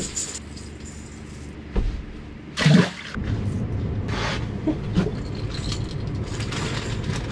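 Knocks and water sounds as a walleye is reeled up and lifted out through an ice hole and handled. The loudest is a sharp knock a little under three seconds in, and a steady low hum starts right after it.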